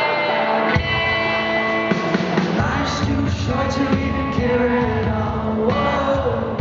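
Live band performance of a rock song: a male singer over strummed guitars, with the bass and drums filling in the low end about a second in and fuller again a couple of seconds later.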